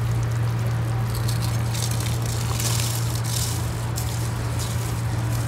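Spiced chicken broth boiling hard in a large pot while washed rice is poured in, the grains pattering into the liquid in several short bursts from about a second in, over a steady low hum.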